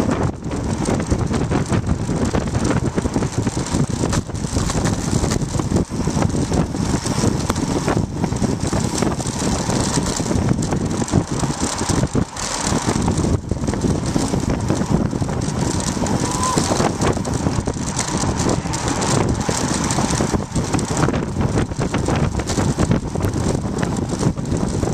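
Wind buffeting the microphone of a bike-mounted camera on a fast road-bike descent, with rattles and knocks from the bouncing homemade mount.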